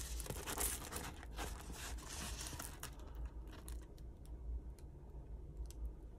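Plastic film over a diamond painting canvas rustling and crinkling as the canvas is handled, followed from about three seconds in by a few light, scattered clicks.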